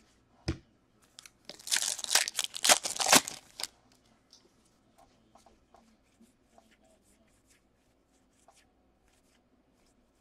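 Stack of baseball trading cards being flipped and slid through the hands: a soft thump, then about two seconds of loud papery rustling, followed by faint scattered clicks of single cards.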